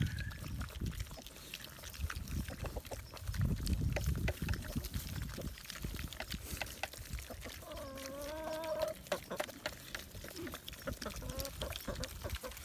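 Piglets eating from a pile of feed, with wet chewing, rooting and many small clicks. About eight seconds in comes a short wavering animal call, and a briefer one near the end.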